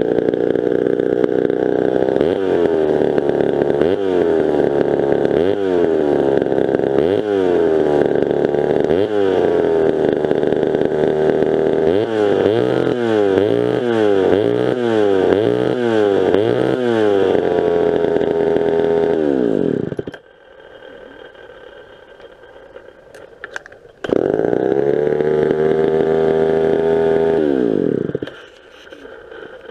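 Vintage Pioneer two-stroke chainsaw running and being blipped on the throttle, the engine speed dropping and rising over and over, slowly at first and then about twice a second. It settles, winds down and stops, then runs again for about four seconds before winding down and stopping once more near the end.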